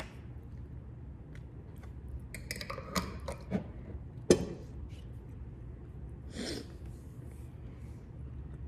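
Someone eating toast: a few faint crackling crunches, a sharp click a little past four seconds in, and a short breath about six and a half seconds in, against low room hum.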